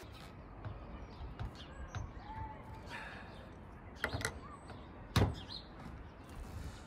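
A few scattered knocks and clunks over a low steady background, the loudest a sharp knock about five seconds in, with a short bird chirp about two seconds in.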